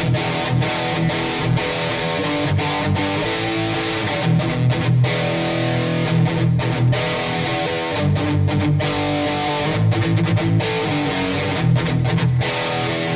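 Epiphone Les Paul Custom electric guitar played with a distorted tone: chord riffs with many short, clipped stops between them.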